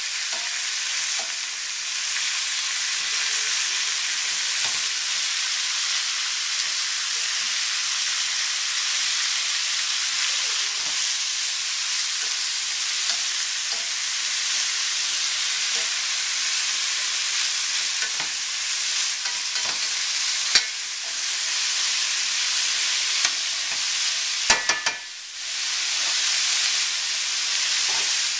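Veal shanks and chopped carrots, celery and onion sizzling in oil in a stainless steel sauté pan, while a utensil stirs the vegetables and now and then knocks against the pan. Near the end comes a quick cluster of knocks, and the sizzle briefly drops before it picks up again.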